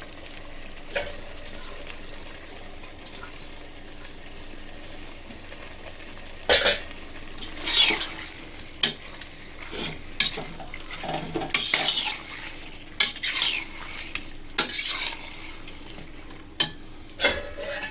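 A spoon stirring and scraping chicken and vegetables in a pressure cooker pot, with sharp clinks against the metal, starting about six seconds in and repeating every second or so. Under it there is a low steady sizzle of the masala frying.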